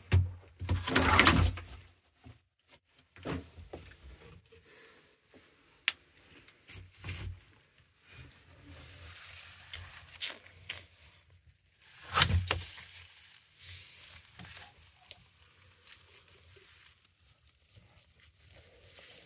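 Rustling and knocks as a hand moves about in a lizard enclosure's dry leaf-litter bedding, with two louder scuffling bursts, one about a second in and one about twelve seconds in.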